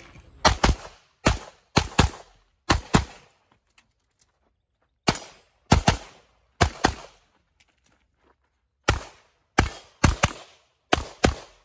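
Handgun shots fired in quick pairs, about twenty in all, in three strings separated by pauses of a second or two. Each shot has a short echo.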